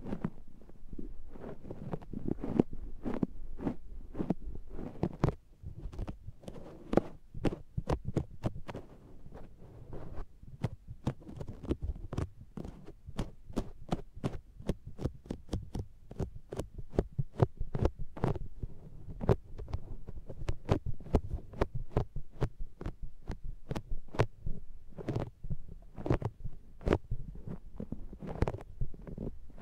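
A makeup sponge pressed and patted against the ears of a binaural microphone: a quick, irregular run of soft, sticky suction pats with muffled low thumps.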